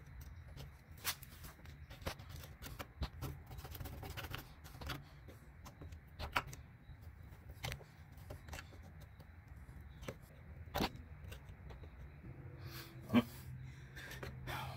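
Screwdriver scraping and picking at hardened, caked-on grease and dirt on a 1966 Mustang's front suspension: irregular scratchy scrapes with a handful of sharp clicks, over a low steady hum.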